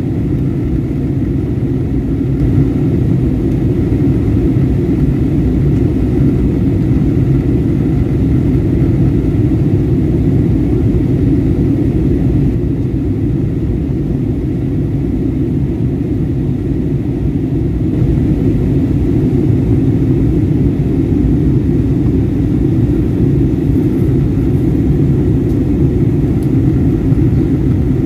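Steady low roar of jet engines and rushing air heard inside a jet airliner's cabin on approach for landing.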